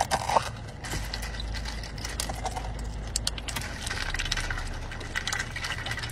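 A pet duck dabbling its bill in a plastic cup of water, making quick, irregular clicks and rattles.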